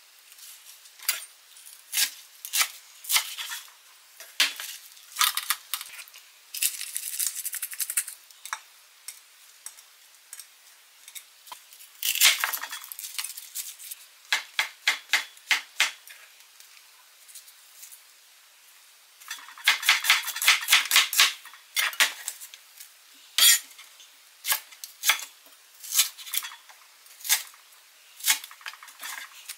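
Kitchen knife slicing vegetables on a cutting board: sharp knocks, some single and some in quick runs of several strokes a second, with rustling of vegetables being handled in between.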